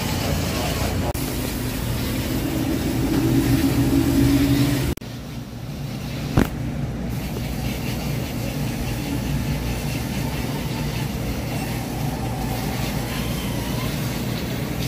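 Dock fuel pump running and gasoline flowing through the hose nozzle into a red plastic portable fuel can. A steady hum and rush of flow, with a sharp click about six seconds in.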